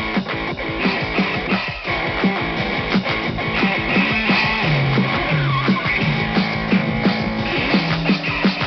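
Music with guitar, loud and dense, with a moving bass line under it.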